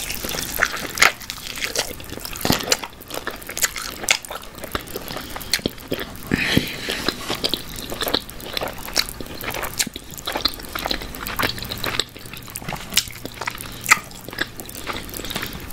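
Close-miked eating of a barbecue chicken drumstick: a bite into the meat at the start, then wet chewing and lip smacking with many irregular sharp clicks.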